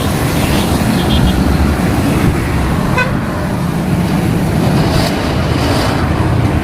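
Steady street traffic rumble with a short vehicle horn toot about three seconds in.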